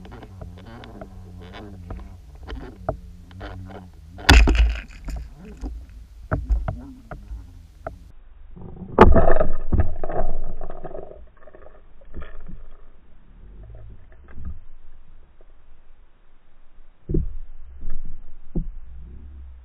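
Underwater sound picked up through an action camera's housing: a low rumble with scattered knocks and clicks, and a steady hum in the first few seconds. There are two loud thumps, about four and nine seconds in. The second comes as a pike strikes right at the camera and is followed by a couple of seconds of churning water.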